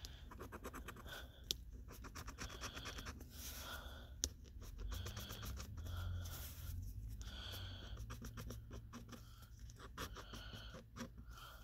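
A penny scratching the coating off a lottery scratch-off ticket in quick runs of strokes, with short pauses between runs.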